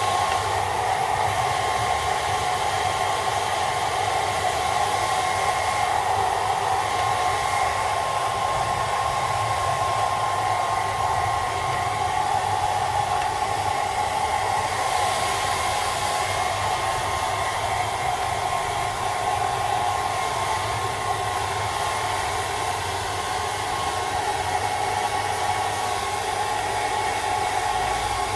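Handheld hairdryer running steadily, its motor and fan giving a whirring rush of air with a steady whine in it.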